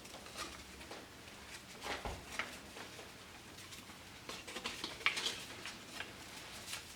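Faint, scattered light taps and rustles of kitchen handling as powdered seasoning mix is poured from a packet over pork chops in a crock pot, with a small cluster of taps about two seconds in and a busier run around five seconds in.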